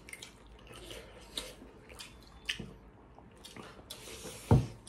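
Wet, sticky eating sounds: hands squishing rice and pork curry and mouths chewing, heard as a string of small clicks and smacks. A single loud low thump comes about four and a half seconds in.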